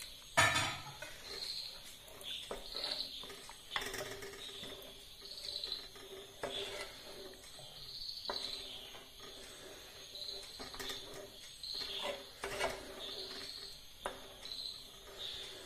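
A spatula stirring milky jackfruit payasam in a metal pot on high heat as the milk comes to the boil: irregular scrapes and knocks against the pot, with a sharper knock about half a second in, and short high squeaky chirps about once every second or two.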